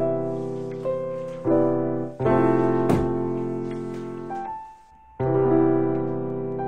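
Background piano music: sustained chords struck anew every second or two, briefly fading almost away about five seconds in before the next chord.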